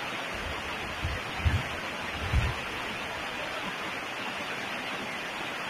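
Steady background hiss from the recording, with a few soft low thumps between about one and two and a half seconds in.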